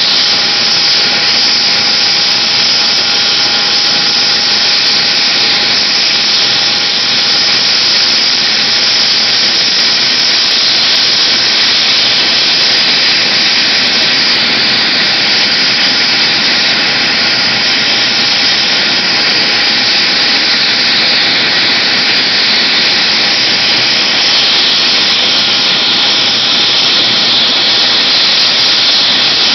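AgustaWestland AW139 air-ambulance helicopter running on the ground with its rotor turning before lift-off: a loud, steady turbine whine and rush, with a few faint steady tones in it.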